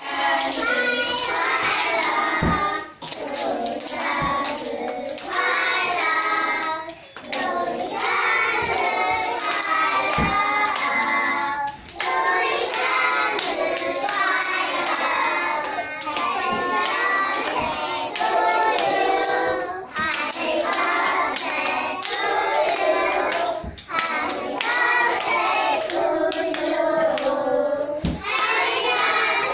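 A group of young children singing a birthday song together, phrase after phrase, with hands clapping along.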